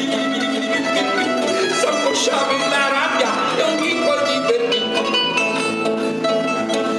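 Lyre guitar (chitarra lyra) played solo, notes picked one after another in a lively instrumental passage of a Tuscan folk song.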